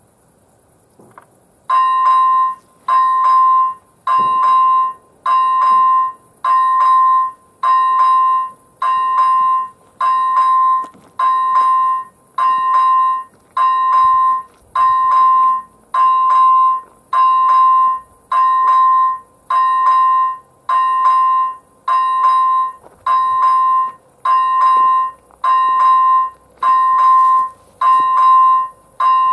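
First-generation electronic warning bell of an AŽD 97 level-crossing signal switching on about two seconds in and sounding a loud, evenly repeated electronic ding, about one a second. The crossing has been activated for an approaching train.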